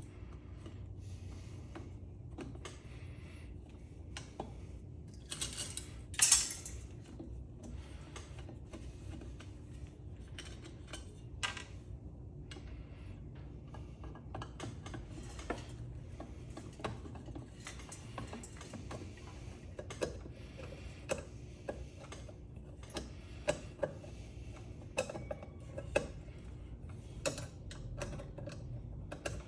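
Small metal clinks, taps and clicks of hand tools and metal parts being worked while a ceiling fan is taken apart, with a louder, harsher clatter about six seconds in and clicks coming more often in the second half. A steady low hum runs underneath.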